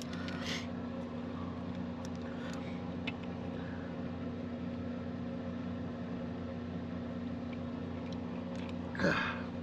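A steady mechanical hum from a running machine, even in pitch and level throughout, with a few faint clicks and rustles.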